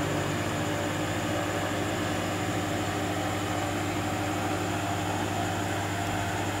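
Steady electrical hum from a powered-up vintage valve RF signal generator, a constant low hum over a background hiss.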